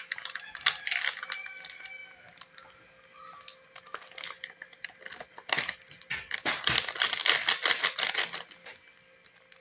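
Plastic breading-mix sachet crinkling and crackling as it is torn open and squeezed out over a plate of flour, with a dense run of crackles in the second half.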